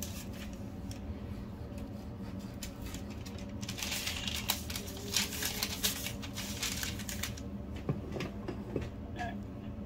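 Parchment paper rustling and crinkling for a few seconds in the middle as a sheet is handled and laid down over a ball of dough, over a steady low hum. A few light knocks come near the end.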